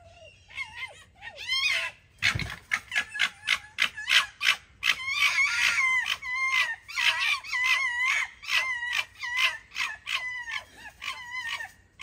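Two foxes screaming at each other in a squabble: a fast run of short, high, shrill calls, several a second, with a few longer drawn-out screams in the middle.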